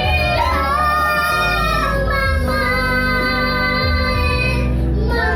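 A young girl singing solo, holding long notes over instrumental accompaniment with a steady bass line.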